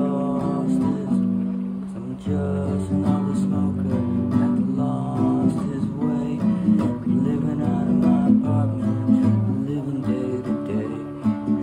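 Nylon-string classical guitar strummed through a run of chords, an instrumental passage.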